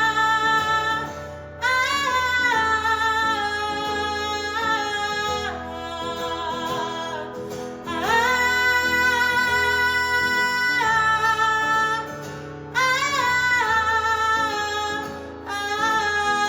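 Live song: a woman's voice singing long held notes, each sustained for several seconds with short breaks between phrases, over guitar accompaniment.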